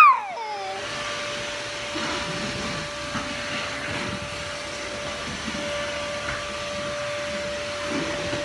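A toddler's crying wail falling away in the first second, then a steady mechanical whir with one constant hum.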